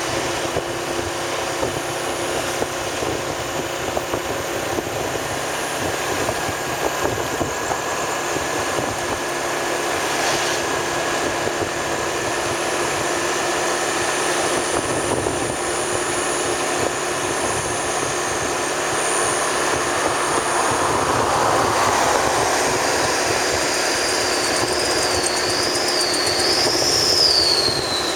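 A vehicle on the move at night, its engine and road noise running steadily and growing slightly louder. A high, wavering whistle-like tone comes in during the last few seconds.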